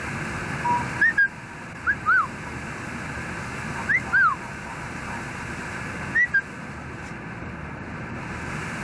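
Budgerigar giving short chirps that rise and fall, singly or in quick pairs, over steady background noise.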